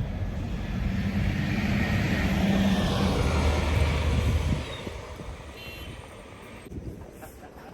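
A motor vehicle driving past: engine and road noise swell to a peak over the first four seconds or so, then fall away quickly.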